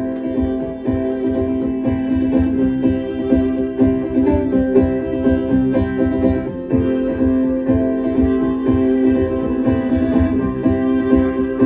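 Instrumental music led by a plucked guitar, with held notes sounding over a steady, busy picking rhythm.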